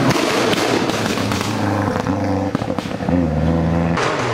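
Lancia Delta Integrale rally car's turbocharged four-cylinder engine at full throttle on a hill climb, its pitch holding and then stepping with several gear changes. The sound changes abruptly near the end.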